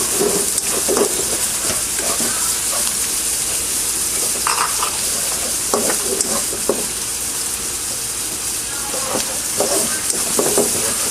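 Garlic and onion sautéing in hot oil in a frying pan: a steady sizzle, with a utensil scraping and stirring the pan every second or so.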